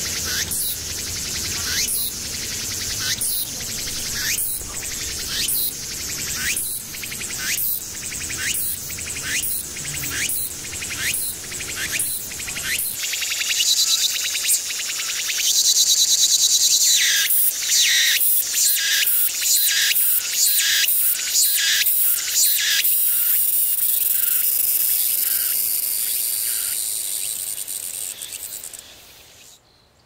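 Cicadas singing: a high, rhythmic call repeated nearly twice a second, broken by a steady buzz for a couple of seconds midway, then fading out near the end.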